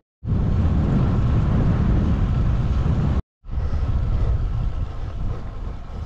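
Wind buffeting the camera's microphone: a loud, steady deep rumble with hiss above it. It drops out to silence twice for a moment, at the very start and about three seconds in.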